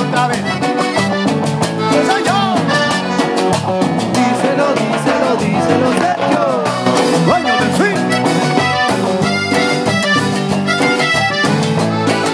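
Live cumbia band playing an instrumental passage, an accordion melody over a steady percussion beat.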